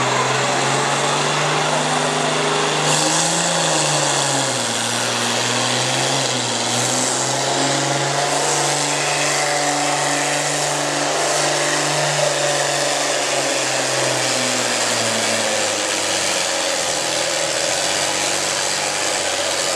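A John Deere farm stock tractor's diesel engine running hard under load while pulling the weight sled. The engine note holds steady, with a brief rise and dip about four seconds in, then drops in pitch about fifteen seconds in.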